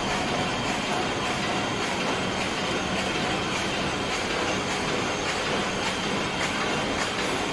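Paper lunch box and hamburger box erecting machine running, a steady dense clatter of its forming and conveying mechanisms with rapid clicking.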